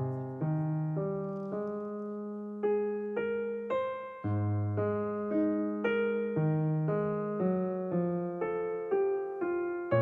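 Background music: solo piano playing an unhurried melody, about two notes a second, each ringing and fading over held bass notes.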